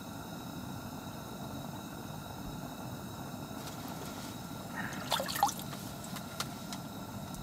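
Steady low hiss, with a short burst of sharp rustling and clicks about five seconds in and a few single light clicks after it: an angler's winter jacket and ice-fishing rod being moved.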